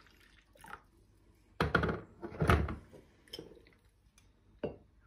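Electric kettle set back down on its base with two heavy thunks about a second and a half in, then a lighter knock of a cup on the countertop near the end.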